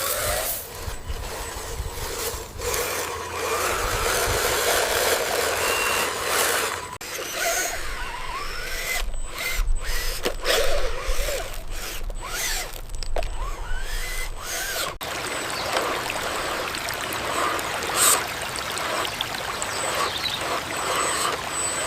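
Small electric motors and gears of radio-controlled construction trucks whirring, with scraping and clicking as the machines work, and a sharp knock near the end.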